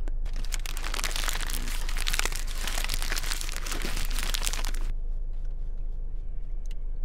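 A red-and-white fast-food takeout bag being crumpled and crushed in the hand: dense crackling that stops about five seconds in.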